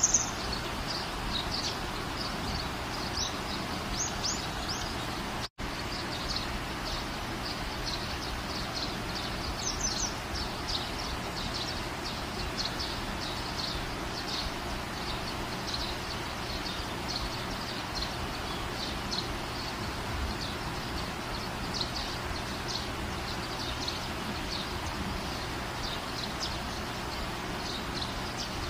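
Small birds chirping repeatedly over a steady background hiss, with a brief dropout about five and a half seconds in.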